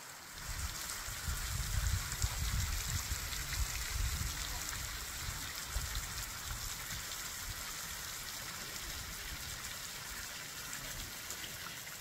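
Water spraying and dripping off a moss-covered tufa overhang, a steady rain-like patter of many fine drops. A low rumble comes in at the start and eases off after about halfway.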